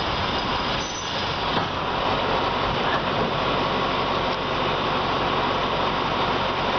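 Train rolling slowly along the track, heard from a carriage window: a steady rumble and hiss of the running train with a low engine hum underneath.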